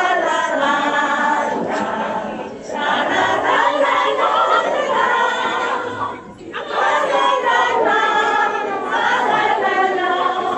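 A group of voices singing together as a choir, in long phrases with short breaks about two and a half and six seconds in.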